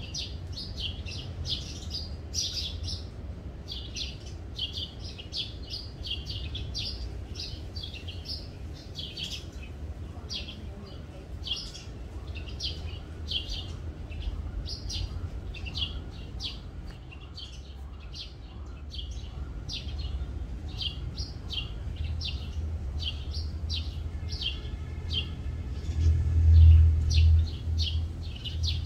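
Small birds chirping over and over in short, high notes, two or three a second. Under them runs a low rumble that grows louder near the end.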